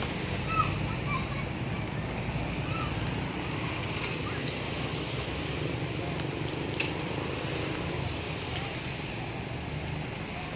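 Steady rushing outdoor noise, like wind buffeting the microphone, with a few faint high chirps in the first second or so.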